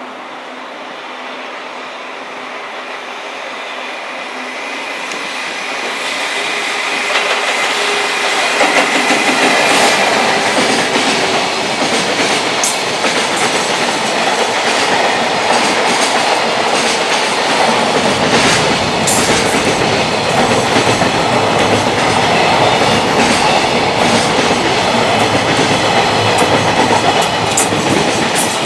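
A freight train draws near and passes at speed, growing steadily louder for the first several seconds. Its wagon wheels then clack over the rail joints in a fast, continuous run of sharp clicks.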